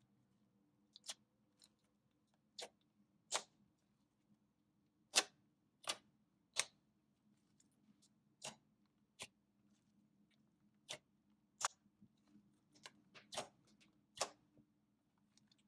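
Homemade glue slime being stretched, folded and pressed by hand, giving sharp, irregular clicks and pops as air pockets in it burst, about one a second.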